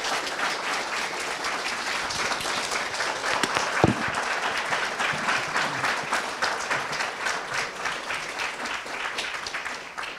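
Audience applauding: dense, steady clapping from many hands, with a single brief thump about four seconds in. The clapping thins toward the end.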